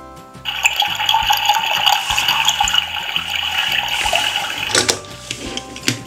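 A steady rushing, water-like hiss lasting about four seconds that cuts off suddenly near the end, over background music with a steady beat.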